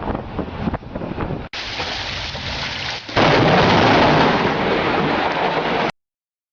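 Storm noise of wind and rain, then a sudden loud thunderclap from a close lightning strike about three seconds in, overloading a low-quality camera microphone. It cuts off abruptly near six seconds.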